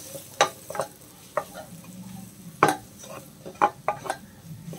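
A spatula scrapes and knocks against a stainless steel pan as a thick onion-tomato masala with freshly added spice powders is stirred and fried. The strokes come in irregular scrapes over a low sizzle.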